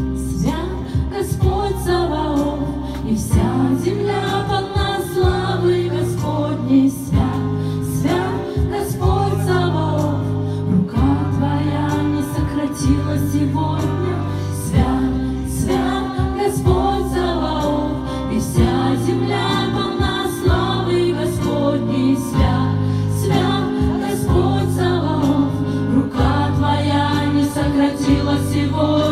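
A live Russian-language worship song: three women sing together into microphones, amplified through a PA, over instrumental backing with sustained low notes and a steady beat.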